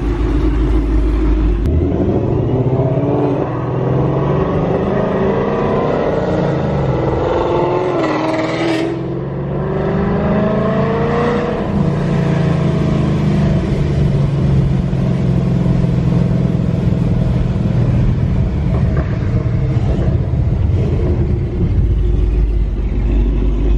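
Coyote 5.0 V8 Mustang with a Corsa Extreme exhaust pulling hard, heard from inside the cabin. The revs climb for several seconds, drop at a shift about nine seconds in, climb again, then settle into a steady loud drone.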